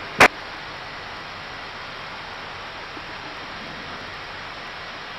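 Steady rush of air in the flight deck of an Airbus A319 in flight, even and unchanging, with one sharp click about a quarter second in.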